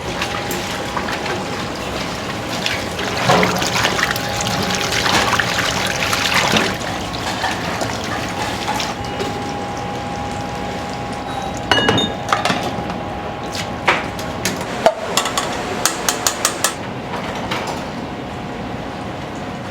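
Udon shop kitchen at work: a steady rush of water or liquid, louder for a few seconds early on, under a faint steady hum, then a run of sharp clinks and knocks from dishes and utensils in the second half.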